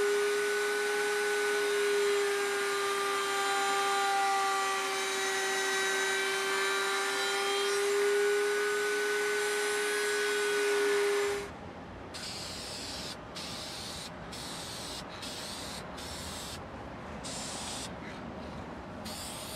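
Router in a router table running at full speed with a profile bit, a steady high whine, as the edge profile is cut on a wooden lid; it cuts off suddenly about eleven seconds in. A run of short hisses from an aerosol spray can follows.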